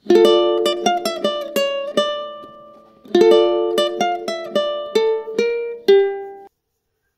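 Short outro music played on a plucked string instrument: a chord at the start and again about three seconds in, with single picked notes ringing out between. It stops suddenly well before the end, leaving silence.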